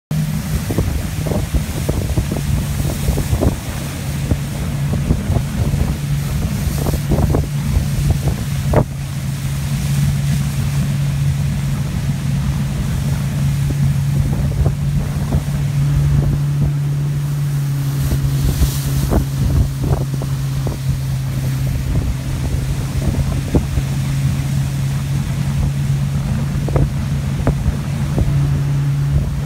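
Motorboat engine running at a steady pitch while the boat moves through a channel, with heavy wind buffeting on the phone's microphone.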